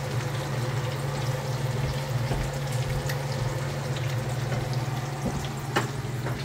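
Eggs sizzling and bubbling in hot oil in a stainless steel frying pan, over a steady low hum. A slotted spatula clicks against the pan a couple of times near the end.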